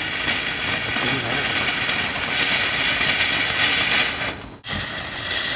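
Ground fountain firework hissing steadily as it sprays sparks. The hiss cuts off for a split second about four and a half seconds in, then carries on.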